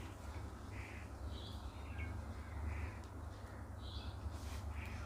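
Faint bird calls, short and repeated about once a second, over a low steady hum.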